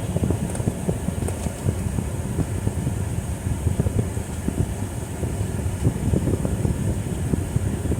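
Steady rumble of a car being driven, heard from inside the cabin, with a thin steady high hiss over it.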